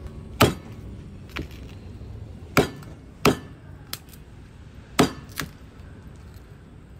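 Meat cleaver chopping cooked chicken on a wooden chopping board: four sharp strikes and a few lighter ones, unevenly spaced.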